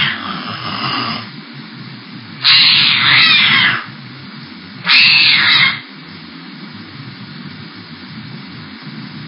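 A cat yowling in protest: the end of one yowl in the first second, then two loud yowls of about a second each, about 2.5 and 5 seconds in, heard through a home security camera's microphone over its steady hiss.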